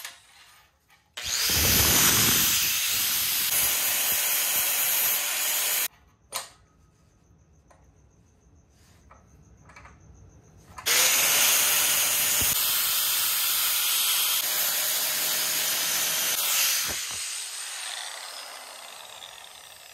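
Handheld grinder polishing small steel motor mounts bright, run twice for a few seconds each with a quiet pause of small handling clicks between. The second run spins up with a rising whine and winds down with a falling one near the end.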